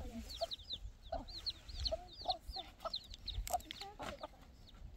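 Chickens clucking among many quick, high-pitched peeps, with one sharp knock about three and a half seconds in.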